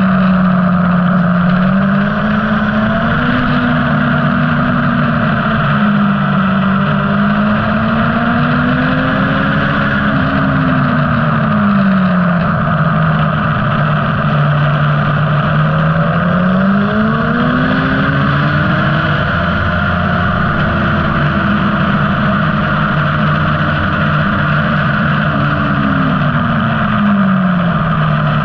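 Onboard sound of a motorcycle engine on a racetrack. The engine note climbs and drops several times as the rider opens and closes the throttle through the corners, with a sharper fall about twelve seconds in and again near the end. A constant rushing noise runs under it.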